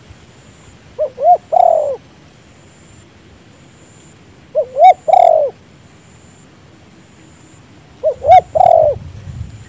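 Spotted dove cooing: three phrases about three and a half seconds apart, each two short notes followed by a longer, falling coo.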